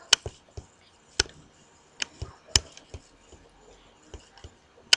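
Computer mouse clicking, a handful of sharp, irregularly spaced clicks with fainter ones between.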